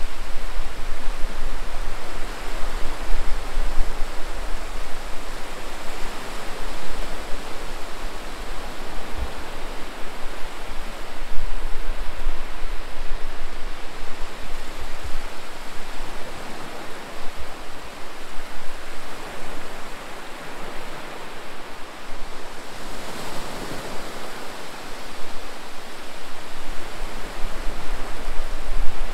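Small waves breaking and washing up a sandy shore: a steady hiss of surf that swells and eases as each wave comes in and draws back.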